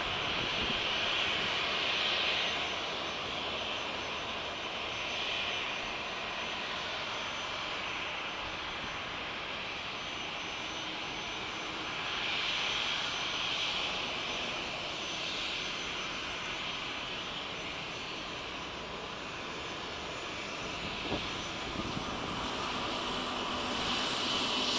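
Jet engines of a taxiing three-engined Dassault Falcon business jet running at idle thrust: a steady jet whine and hiss that swells and eases several times as the aircraft rolls toward and past.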